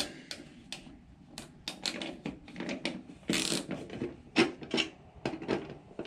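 Screwdriver turning out the screw that holds the access cover on an electric water heater: a run of irregular clicks and light scrapes.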